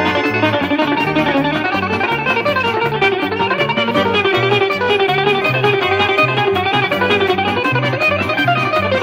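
Greek bouzouki instrumental music: a quick plucked bouzouki melody over a steady, evenly pulsing bass line.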